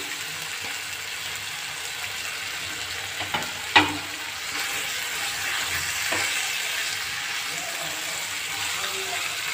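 Potatoes and tomato chunks sizzling steadily in oil and spice paste in a nonstick frying pan, with a single sharp knock about four seconds in and a few lighter clicks. A spatula starts stirring the pan near the end.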